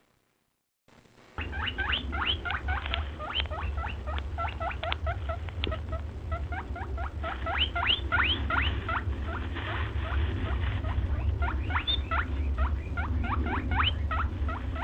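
Small animals squeaking: many short, quickly rising squeaks, several a second, over a steady low hum. The squeaks begin about a second in.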